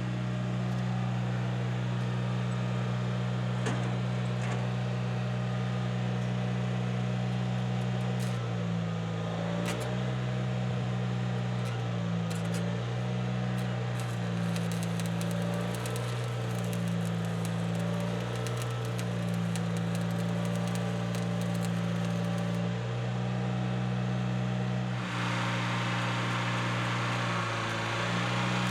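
Small Kubota diesel engine in a skid steer running steadily. From about eight seconds in its speed repeatedly dips and recovers, and a hiss joins it near the end.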